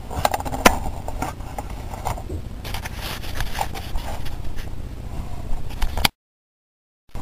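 Scattered clicks, knocks and scrapes of handling over a steady low rumble. The sound cuts out completely for about a second near the end.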